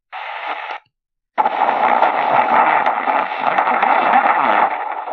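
Sony ICF-SW7600GR portable radio's speaker hissing with AM static as it is tuned between medium-wave stations: a short burst of static, about half a second of muted silence as the tuning steps, then steady static for several seconds.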